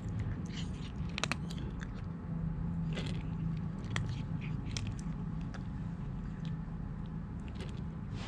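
Cat chewing dry kibble from a stainless steel bowl: irregular sharp crunches, several a second at times, over a steady low hum.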